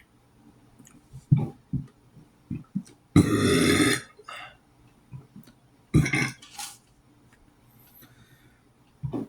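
A man burping repeatedly: a few short burps, then a long loud burp about three seconds in and another loud one about six seconds in. The burps come after drinking a lot of water, which he guesses is why they sound unusual.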